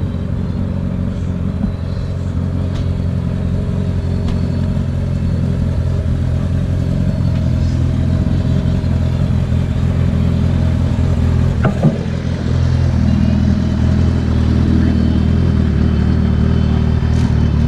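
Car engine running at a steady low idle, a deep even rumble. It steps up louder about twelve and a half seconds in, with a brief knock just before.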